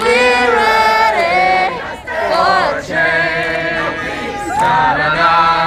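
Several voices singing together over crowd noise, with held notes that slide up and down between short breaks.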